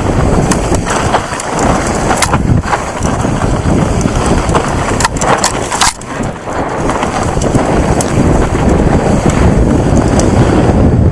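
Wind buffeting the microphone and mountain bike tyres rumbling over a rough dirt trail at speed, with frequent knocks and rattles from the bike over bumps.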